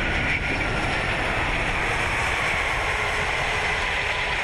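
Airbus A380-800 rolling out on the runway just after touchdown: a steady rumble and rushing noise with a faint steady high whine.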